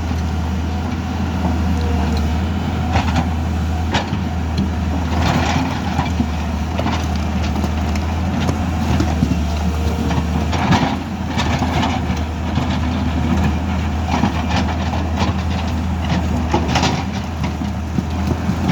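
Heavy diesel excavator engine running steadily under load, with irregular knocks, clanks and scrapes of rock and metal as it works.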